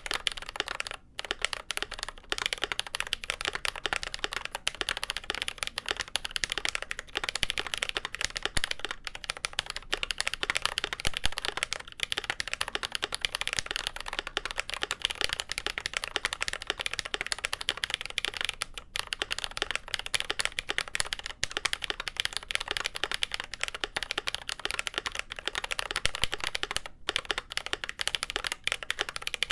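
Continuous fast typing on a GMK Pro mechanical keyboard with lubed Glorious Panda tactile switches on a polycarbonate plate: a dense, steady patter of keystrokes with only a few brief pauses.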